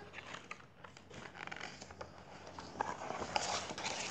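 Paper pages of a picture book being turned and smoothed down: a dry rustling and crackling, loudest near the end.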